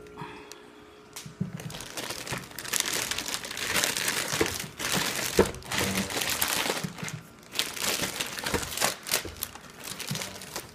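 Plastic packaging crinkling and rustling as it is handled and pulled away during unboxing, in a busy run of crackles and small clicks that starts about a second and a half in.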